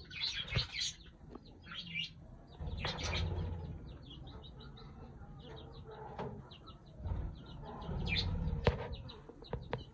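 A flock of budgerigars chirping and chattering in quick short notes as they feed, with a few sudden bursts of wing flapping.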